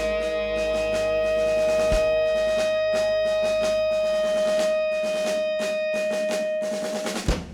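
Live rock band ending a song: guitars and keyboard hold the final note while the drums build with dense snare and cymbal hits, closing on one last hit about seven seconds in, after which the music cuts off.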